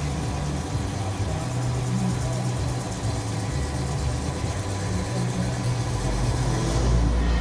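Manual engine lathe spinning a long auger in a steady rest while the tool turns the shaft end under flood coolant: a steady machine hum with a hiss of coolant and cutting. Near the end the sound shifts to a deeper rumble.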